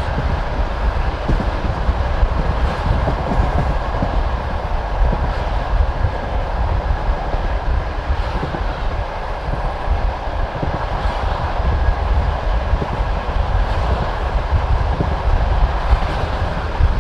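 Passenger train carriage running along the track, heard from inside the carriage at the window: a steady rumble of the wheels on the rails, with an occasional clack over a rail joint.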